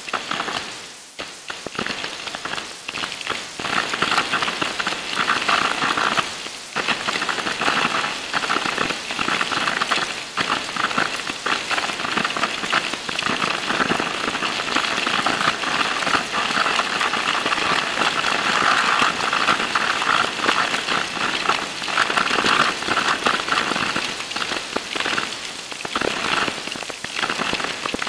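Narrow-gauge rail trolley running along the track, its wheel and track noise sped up into a dense, steady crackle of fine clicks and rattles.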